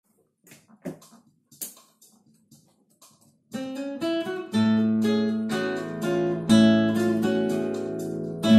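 A few faint clicks and knocks, then about three and a half seconds in an acoustic guitar starts a fingerstyle solo, a plucked melody over sustained bass notes.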